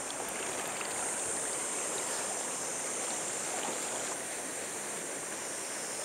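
Steady rush of a shallow river riffle flowing fast over stones.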